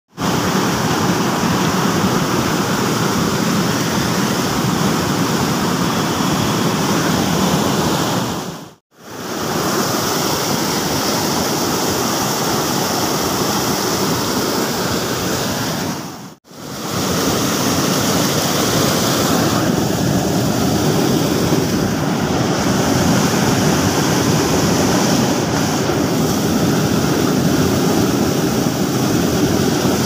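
Fast, turbulent river water rushing below a waterfall as a loud, steady wash of noise. It cuts out briefly twice, about 9 and 16 seconds in.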